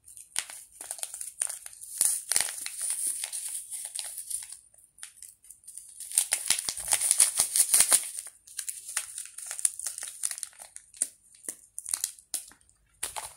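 Small plastic packet of instant-snow powder crinkling and rustling as it is handled and opened, in uneven runs of crisp crackles that are busiest about two seconds in and again around the middle.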